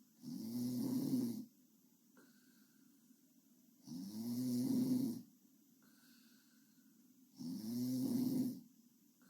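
A sleeping girl snoring: three pitched snores, each about a second long, coming about every three and a half seconds.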